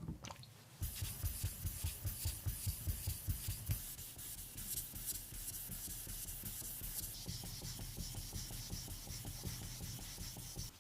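Abrasive rubbing on a hard surface, as in hand sanding: quick back-and-forth strokes, about three or four a second, for the first few seconds, then a steadier, even rubbing.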